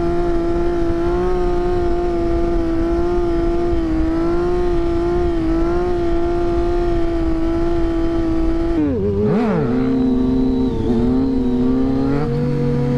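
Motorcycle engine held at steady high revs under way, with wind rush on the helmet microphone. About nine seconds in the pitch dips sharply and wavers before steadying at a new note, as the throttle is changed.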